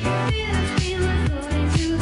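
Background pop music with a steady dance beat and bass.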